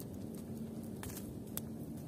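A stick stirring the ashes and embers of a dying campfire, the embers giving a few sharp crackles, one about a second in and another half a second later, over a low steady background noise.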